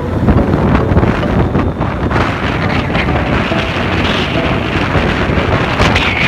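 Wind buffeting a handheld phone's microphone on a moving motorcycle: a loud, steady rumbling rush.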